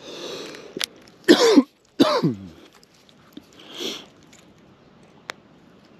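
A man coughing and clearing his throat: two loud coughs with a falling voice about a second and a half and two seconds in, then a softer breathy one near four seconds.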